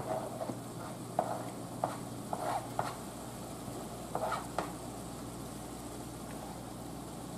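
A spoon scraping diced green bell pepper and celery off a plastic cutting board into a skillet, in about six short scrapes and knocks in the first five seconds, with the pan of browning meat sizzling underneath.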